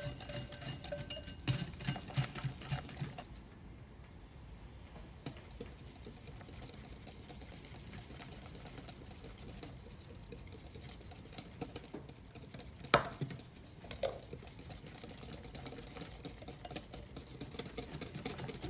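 Hand whisk beating a cream cheese and milk batter in a glass bowl: quick strokes for the first few seconds, then softer, steadier mixing. There is one sharp knock about two-thirds of the way through as egg yolks are added, and a smaller one just after.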